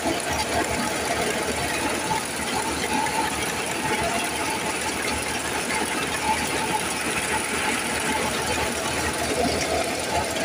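Tractor-driven wheat thresher running steadily under load as wheat sheaves are fed into it, with the tractor's engine running beneath.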